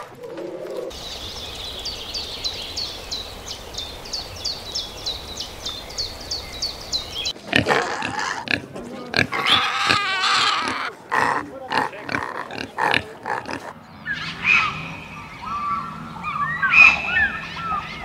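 Young pigs squealing and grunting for about six seconds in the middle. Before them comes a steady hiss with a quick regular run of high ticks, and after them short rising and falling calls.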